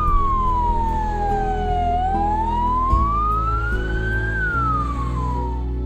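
Ambulance siren wailing in slow sweeps: the pitch falls for about two seconds, rises for about two, then falls again and fades out near the end.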